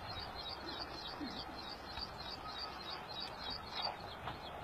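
A bird chirping over and over, high and quick at about five chirps a second, over faint outdoor background, with a few faint knocks near the end.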